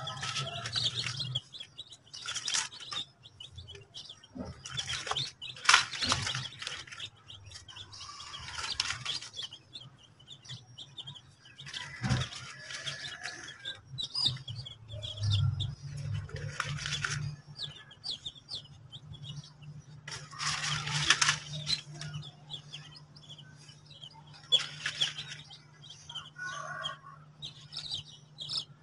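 Baby chicks peeping, many short high chirps, with louder rustling and scuffling every few seconds as chicks are handled and set down on dry dirt.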